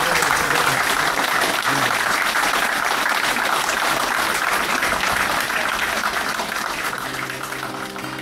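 An audience applauding: many people clapping together in one dense, steady wash that slowly dies down over the last second or two.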